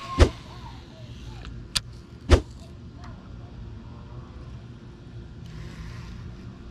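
Two sharp knocks about two seconds apart, with a fainter click between them, over a steady low rumble.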